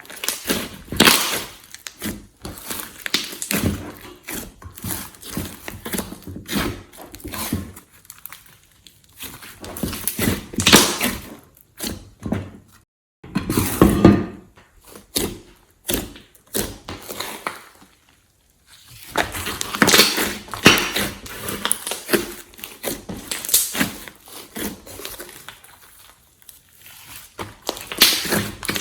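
Glossy slime being squeezed, stretched and kneaded by hand, making irregular clusters of sticky clicks and squelches, with brief pauses between handlings.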